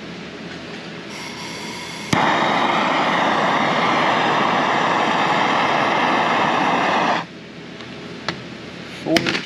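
Handheld propane torch: gas hisses faintly, then a click as it lights at about two seconds, and the flame burns steadily and loudly for about five seconds before cutting off suddenly. A couple of sharp clicks follow near the end.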